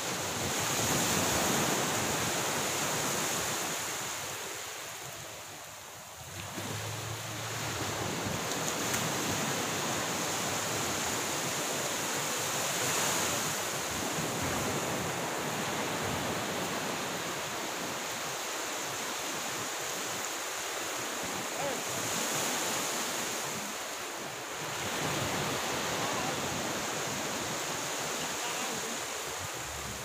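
Waves washing onto a shore, a steady rush that swells and eases every several seconds.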